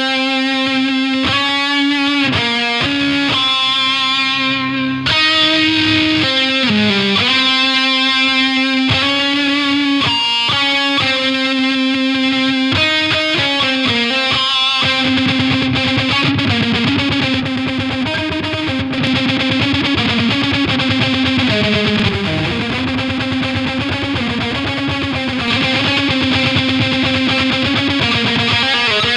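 Recorded distorted electric guitar part playing back: a melodic line of held notes that turns denser about halfway through. It is heard through a WSW vintage EQ plugin emulation, with an EQ cut being tried in the upper mids around 4 kHz.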